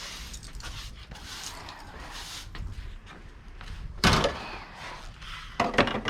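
Broom strokes swishing across the floor, then a sharp thud about four seconds in and a couple of quicker knocks near the end, as of something hard being set or bumped down.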